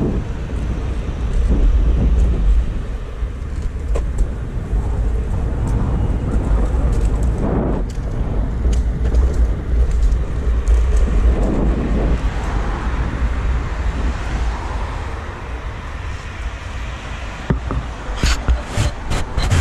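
Road traffic noise with a heavy low rumble of wind on the microphone, recorded on the move. A quick run of sharp clicks near the end.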